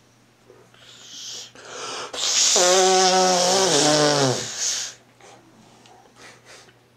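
A person's long, loud, groaning breath out, like a yawn or sigh, after a short breath in; the voice in it falls in pitch toward the end.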